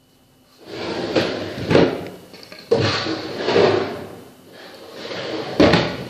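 Drawers of a wood-effect chest of drawers sliding open and shut on their runners, about three slides in a row. Each slide ends in a sharp knock as the drawer stops.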